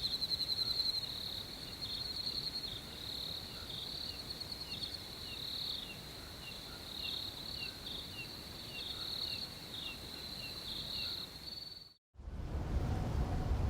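Night insects, crickets, chirping in steady pulsing trills, with a softer short call repeating about twice a second beneath them. About twelve seconds in, the sound cuts off abruptly, and a low rumbling noise with a faint steady hum begins.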